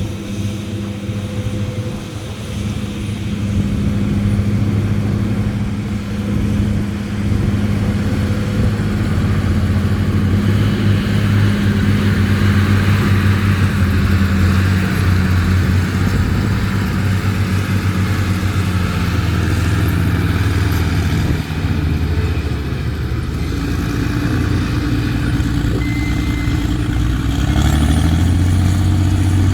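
Heavy diesel engine running steadily at a low, even pitch, with its engine speed climbing near the end.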